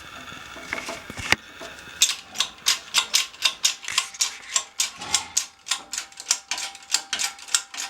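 Rapid, evenly spaced sharp clicks from hand-tool work on an Evo front control arm, about three or four a second, beginning about two seconds in after a couple of single knocks. This is the work that pushes the old suspension bushing out of the arm.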